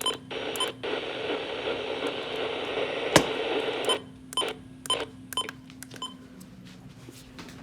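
Static hiss on a weather radio receiver, broken by sharp crackles and pops, with one loud pop about three seconds in; the hiss drops away about four seconds in, leaving fainter scattered clicks.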